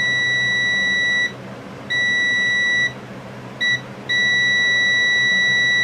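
Multimeter continuity beeper giving a steady high-pitched beep again and again as the probes touch the terminals of an ignition key switch turned to run. There is a beep of about a second, then another of about a second, then a brief blip, then a long beep starting about four seconds in. Each beep shows continuity through that terminal in the run position.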